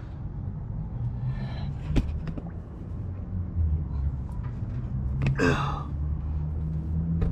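A man's heavy breath of effort about five and a half seconds in, while he holds a heavy oil-filled filter up under the truck, over a steady low hum with a single sharp click about two seconds in.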